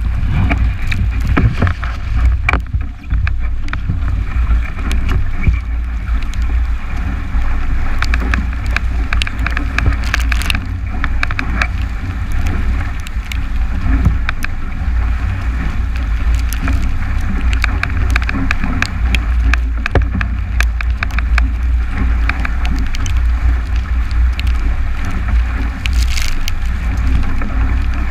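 Strong wind buffeting the microphone with a constant low rumble, over water rushing and splashing against the hull of a 29er skiff sailing fast in heavy air, with frequent sharp splashes and knocks.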